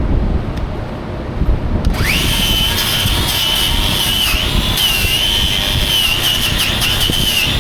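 Angle grinder starting up about two seconds in, then running steadily on steel with a high whine that wavers slightly in pitch.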